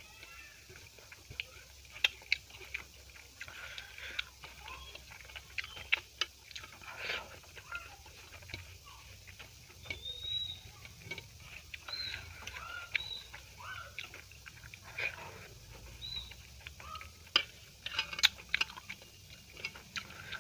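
Close-miked eating sounds: a person chewing and lip-smacking, with irregular sharp wet mouth clicks, the loudest about two seconds in and near the end.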